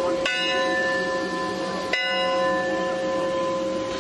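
Steam locomotive bell of the Eureka & Palisade No. 4 being rung: two slow strikes about a second and a half apart, each ringing on with a long, clear tone. It is the bell rung as the train gets ready to move off.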